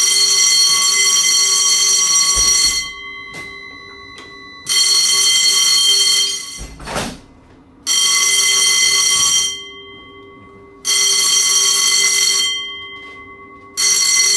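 Ship's general alarm sounding in repeated blasts of about two seconds, each with a steady, evenly pitched tone and gaps of a second or two between them. It is the muster signal for abandoning ship. A short low thump comes about seven seconds in.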